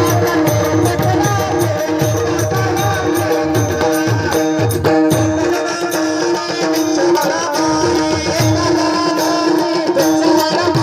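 Tabla playing a devotional bhajan rhythm, its bass drum strokes bending in pitch several times a second, over steady held notes from an accompanying instrument.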